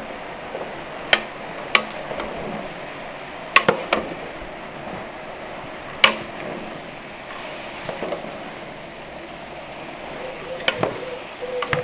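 Sliced peppers, apple, onion and carrot sizzling in oil in a cauldron, with a spoon knocking sharply against the pot several times as the vegetables are stirred.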